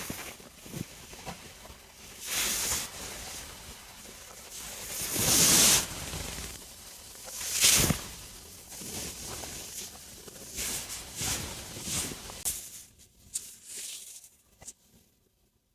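Stomach rumbling and gurgling during digestion after a meal: a string of irregular swells and gurgles, the two loudest about five and eight seconds in, thinning out near the end.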